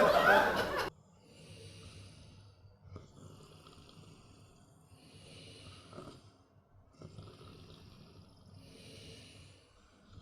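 Person asleep snoring softly, slow breathy snores repeating about every couple of seconds. Opens with about a second of loud voice that cuts off abruptly.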